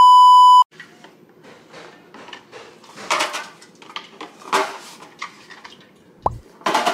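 A loud test-pattern beep, one steady tone with overtones, for about half a second. Then aluminium soda cans clatter and knock against a clear plastic refrigerator can-dispenser bin as they are loaded in and roll into line, with a few sharper knocks.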